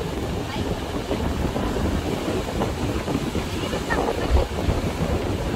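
Wind buffeting the microphone as a steady low rumble over the wash of breaking surf.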